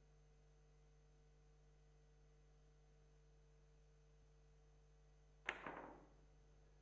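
Near silence with a faint steady hum, then about five and a half seconds in a single sharp knock as the cue tip strikes the cue ball in a steep, near-vertical massé stroke on a carom billiards table, dying away within about half a second.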